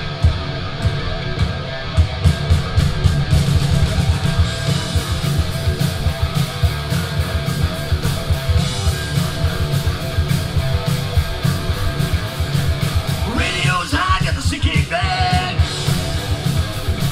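Live rock band playing: electric guitars, bass guitar and a drum kit, with a voice singing in near the end.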